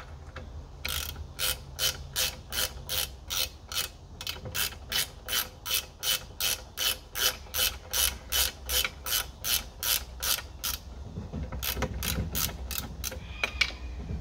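Ratchet wrench with an extension clicking as it is swung back and forth, about three strokes a second, running down a nut that holds an outboard's lower unit in place. The rhythm breaks up into a few irregular clicks near the end.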